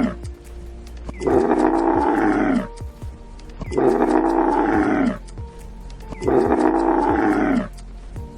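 A big cat roaring in repeated calls, about every two and a half seconds, each over a second long and dropping in pitch as it ends, over background music.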